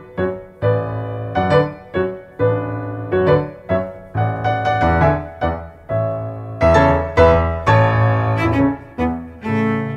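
Instrumental background music led by piano, its notes struck about once or twice a second and dying away, over low sustained string tones.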